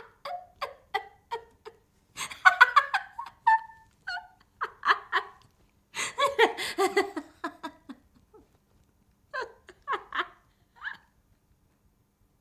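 A woman laughing hysterically in short breathy bursts, on and off, with pauses between the fits.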